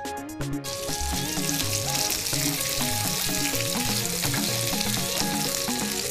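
Strips of chicken breast sizzling steadily in butter in a nonstick frying pan, stirred and turned with a spatula; the sizzle starts about a second in.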